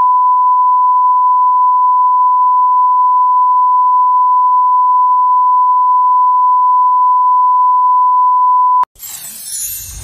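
Television test tone that goes with colour bars: one loud, steady, pure beep at a single pitch, cutting off suddenly about nine seconds in. A burst of noise follows near the end.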